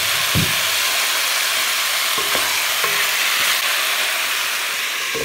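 Chicken breast strips and onion sizzling steadily in hot vegetable oil while being stirred, with a few short knocks of the stirring utensil against the pan near the start and about two seconds in.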